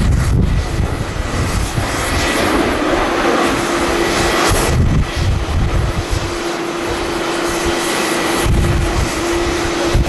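Jet engines of a Boeing 737 airliner running as it rolls along the runway: a dense, steady roar with a faint steady hum that fades in and out. Strong wind buffets the microphone in low rumbling gusts, heaviest at the start and again near the end.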